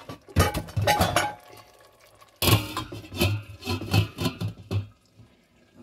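Cookware clattering: a glass pot lid knocking and rattling against metal in two bursts of knocks with some ringing, the second starting about two and a half seconds in as the lid is set onto the stainless steel pot.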